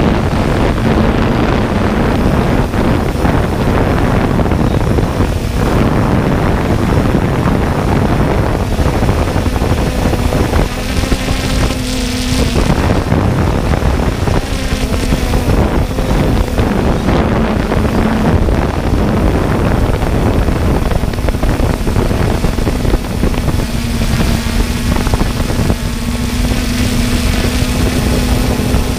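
Camera drone's electric motors and propellers humming steadily, the pitch drifting slightly as it flies, under heavy wind noise on the microphone.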